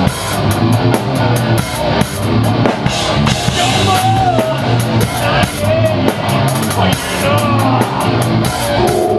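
Thrash metal band playing live: a drum kit with cymbals struck several times a second under distorted guitars, with a few short bending notes in the middle.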